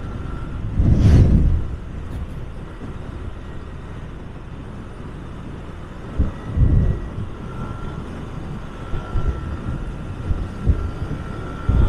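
Motor scooter riding through town: wind buffets the microphone in loud low gusts about a second in, around six and a half seconds and near the end, over the steady rush of the ride and the scooter running underneath.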